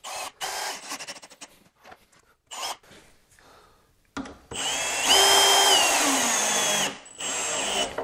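Cordless drill-driver driving 6×60 mm washer-head wood screws through a steel caster plate into timber. It starts with a few short bursts, then makes one longer run of nearly three seconds in the second half, its motor whine rising and then falling in pitch before it stops, and ends with a brief final burst.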